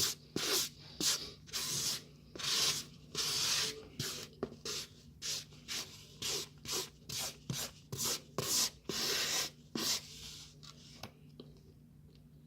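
Close-up crunching of microwaved tapioca starch chunks being chewed, about two crunches a second, a few of them drawn out, fading after about ten seconds.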